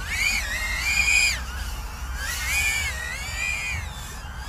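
Diatone GT R239 2-inch 3S micro quadcopter's brushless motors and propellers whining in flight, the high-pitched whine swelling up and falling back with the throttle three times.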